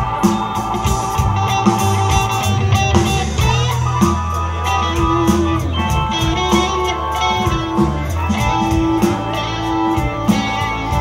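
Live rock band playing: electric guitars, bass guitar, drums and keyboard, over a steady drum beat.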